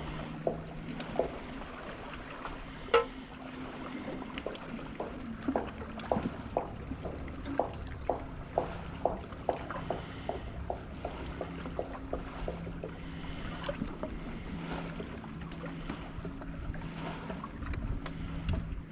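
Bow-mounted electric trolling motor humming steadily. One sharp click about three seconds in, then a run of short, evenly spaced taps, about two to three a second, between about five and thirteen seconds in.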